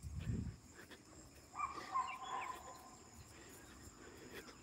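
Faint, steady high-pitched chirring of crickets or other insects. A brief low rumble comes at the start, and a short distant call about one and a half seconds in.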